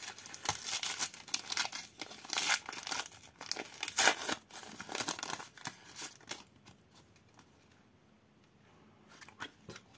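Wrapper of a Formula 1 Turbo Attax limited-edition trading-card pack crinkling and tearing as it is opened, a run of sharp crackles and rips, then quieter rustling from about six and a half seconds in.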